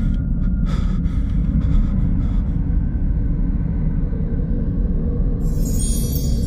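Film sound design: a steady, deep rumbling drone, with a few sharp breaths in the first couple of seconds. About five and a half seconds in, a glittering shimmer of high chime-like tones comes in, the magic-sparkle effect of the box opening.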